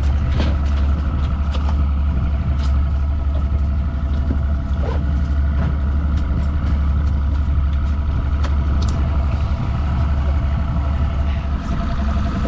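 Mercury 125 outboard motor running steadily at trolling speed, a low drone with faint steady tones above it, and scattered light knocks and clicks on the boat.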